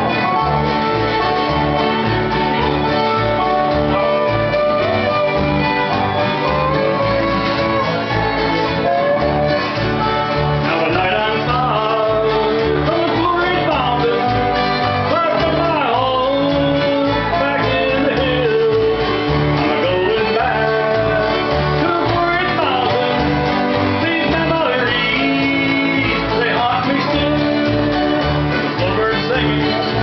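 A live bluegrass band playing: acoustic guitars, fiddles and upright bass, with a man singing lead.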